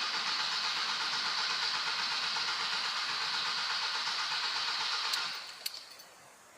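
Starter motor cranking an Audi A3 1.9 TDI diesel engine, which does not fire. It is turning over to bleed air out of the freshly refilled injection pump. The cranking stops about five seconds in, followed by a couple of faint clicks.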